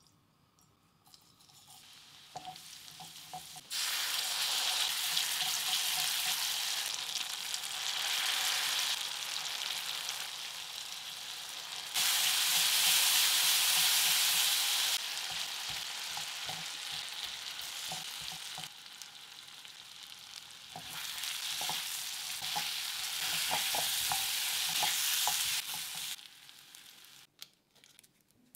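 Oil and a spice sauce sizzling in a hot wok while a spatula stirs and scrapes it, giving short clicks over a dense hiss. The sizzle starts about four seconds in, changes loudness abruptly several times, and dies away near the end.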